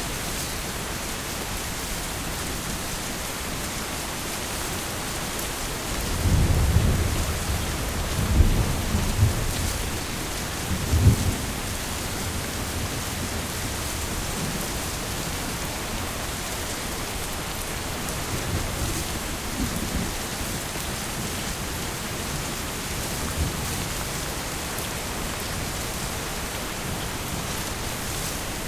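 Heavy rain falling steadily, with thunder rumbling low and loudest from about six to twelve seconds in, and a fainter roll later.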